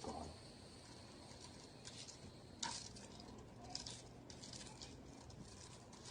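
Faint, scattered light scratching and rustling, with a few short scratches about two and a half seconds in and a cluster a second or so later.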